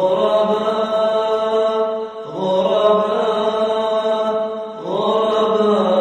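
Vocal chanting in long held notes, with a new phrase starting about two and a half seconds in and another near five seconds.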